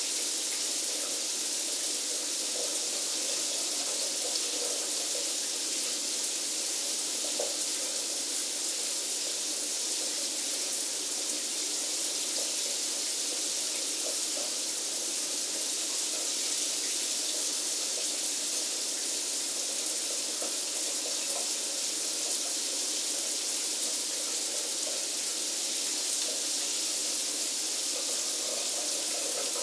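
Shower running steadily, its spray hissing down without a break.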